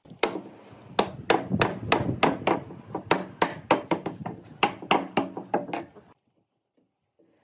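A series of hammer blows on a wooden table frame, about three a second, stopping about six seconds in; the joints are being knocked together.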